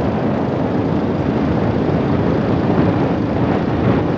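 Motorcycle engine running steadily while riding, mixed with wind rushing over the microphone.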